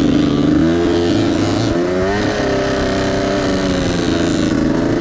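Dirt bike engine running under throttle while riding, its pitch climbing about a second in and again near two seconds, then slowly easing off.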